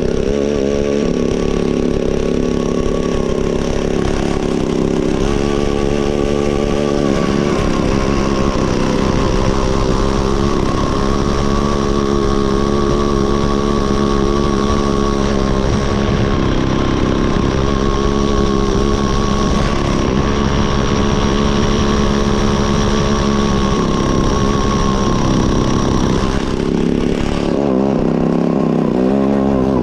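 Gas-powered ice auger's small engine running hard, its speed rising and falling as it drills, with a change in pitch near the end.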